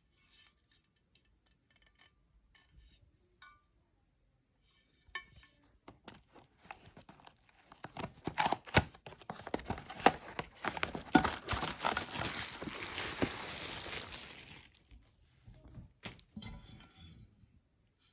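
Packaging on a new Neoflam frying pan being handled: scattered light clicks and clinks, then plastic wrapping crinkled and torn for several seconds in the middle, then a few clicks again near the end.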